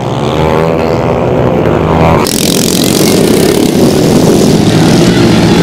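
Several dirt-bike engines revving hard and rising in pitch as the pack launches off the start. About two seconds in, a sudden cut to a pack of motor scooters running flat out on a loose dirt track.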